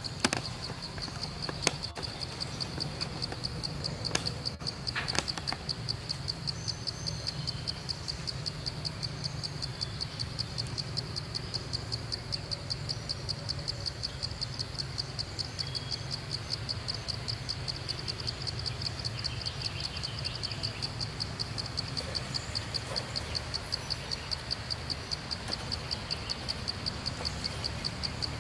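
Steady, rapidly pulsing high-pitched insect trill, with a steady low rumble underneath. A few sharp clicks come in the first five seconds.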